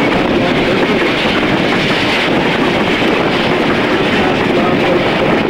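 Passenger train coach rolling on the rails, heard from an open coach window: a loud, steady rumble and rattle of the wheels on the track.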